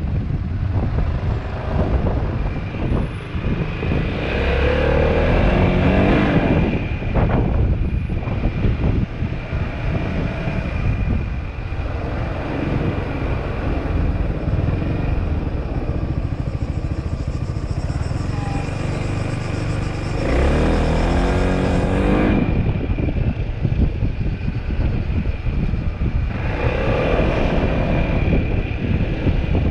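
Motorcycle engine running while riding, with wind rushing over the microphone; several times the engine note climbs in pitch as the bike accelerates.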